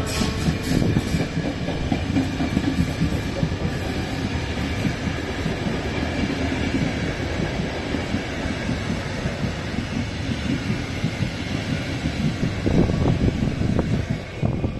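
Long train of passenger coaches rolling past close by: a steady rumble of steel wheels on rail with a fast clatter of wheels over rail joints, the clatter thickest near the end.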